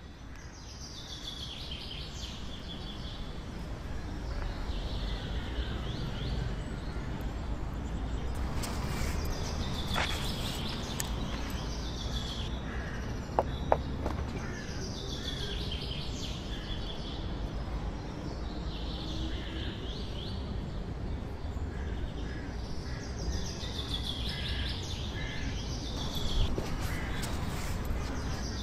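Outdoor ambience of birds singing short repeated phrases every few seconds over a steady low rumble, with two sharp knocks in quick succession about halfway through.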